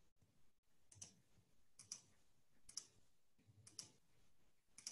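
Near silence broken by faint, short clicks about once a second, five in all.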